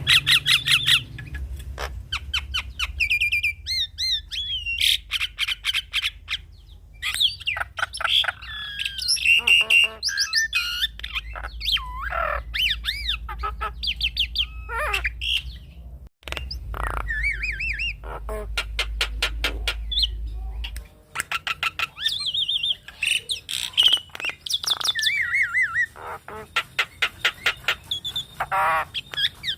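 Javan myna (jalak kebo) singing a long, varied medley of whistled glides, squawks, chirps and rapid clicking notes. A low hum underneath stops about two-thirds of the way through.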